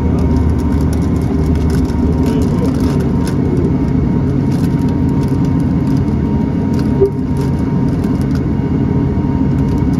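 Pilatus PC-12's single turboprop engine and propeller running steadily at taxi power, heard inside the cabin as an even, unchanging drone. A brief click about seven seconds in.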